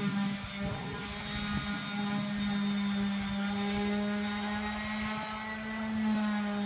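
A steady, pitched drone holding one low note throughout, with fainter overtones that come and go.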